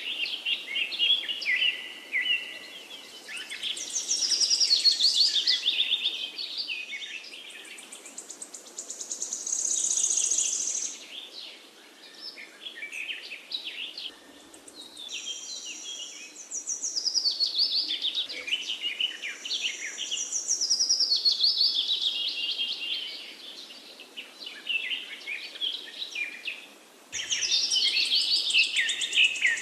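Forest songbirds singing: several overlapping high songs of rapid repeated notes, coming in phrases a few seconds long with short lulls between, over a faint steady background hiss.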